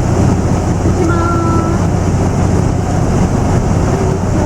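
Steady rumble and hiss of a locomotive-hauled passenger train running on the rails, with a brief faint tone about a second in.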